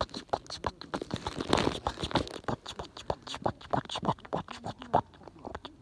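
Wood fire crackling with dense, irregular pops and snaps, which thin out near the end.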